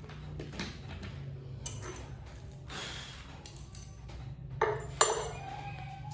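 Small metal parts of speed-bag hardware clinking as they are handled, with a few light knocks and one sharp, ringing metallic clink about five seconds in.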